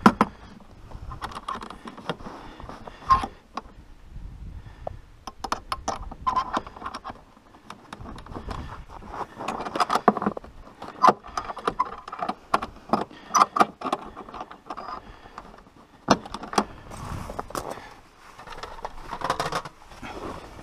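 Irregular metal clinks and hard plastic knocks as PVC pulk tow poles with steel eye bolts are handled and hooked onto a plastic pulk sled.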